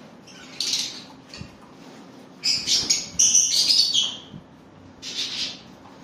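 A flock of masked lovebirds chirping in short bursts of high, sharp calls. The busiest and loudest bout runs from about two and a half to four and a half seconds in, with shorter bursts near the start and near the end.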